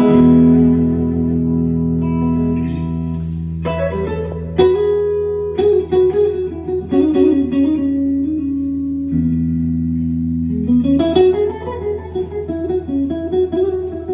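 Fender 1963 Masterbuilt electric guitar played through an amplifier: a chord rings out at the start, then single-note licks from about four seconds in, a second held chord about nine seconds in, and more licks after it.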